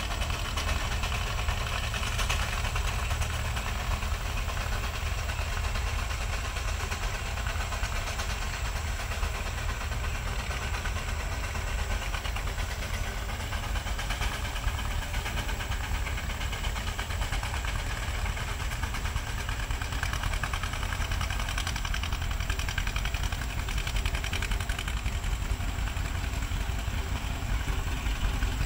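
Vintage tractors plowing: a Case steam traction engine and a gas tractor pulling plows under load, their engines running steadily with a fast, even beat.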